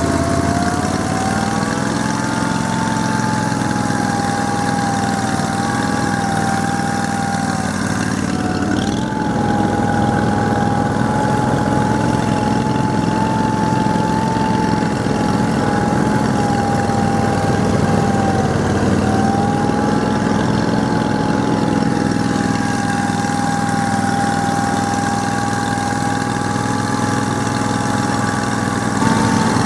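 Argo amphibious ATV engine running steadily, with a high whine that holds its pitch and dips briefly twice.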